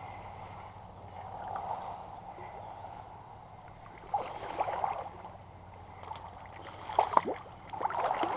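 Steady rush of creek water, with a hooked trout splashing and thrashing at the surface in bursts near the end.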